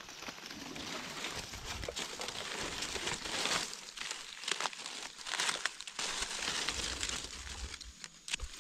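Dry fallen leaves and twigs crackling and rustling in irregular bursts as gloved hands and a knife push through undergrowth and leaf litter on the forest floor.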